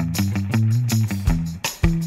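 Background music with a steady beat over sustained bass notes.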